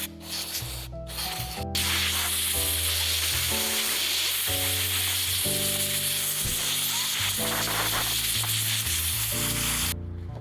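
Background music with a steady hiss over it. The hiss starts about two seconds in, is the loudest sound, and cuts off suddenly near the end.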